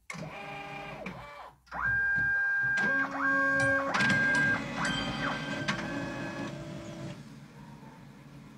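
Office copier starting up: its motors run in a series of whines that glide down, hold steady and step between pitches, stopping about seven seconds in and leaving a faint low hum. This is the start-up surge, when the copier draws its peak current.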